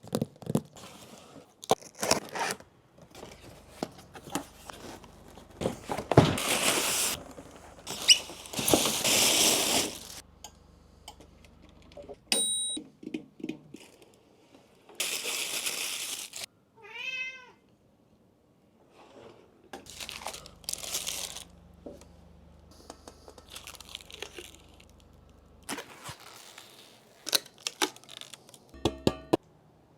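Packaging being handled and opened: repeated rustling, crinkling and tearing, with clicks and knocks. Partway through, a cat meows once.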